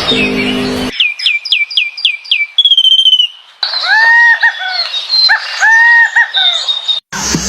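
Birds calling: a quick run of about six down-slurred chirps, a short trill, then repeated arched whistled notes, often in pairs. A short low tonal sound comes first, and the calls cut off just before the end.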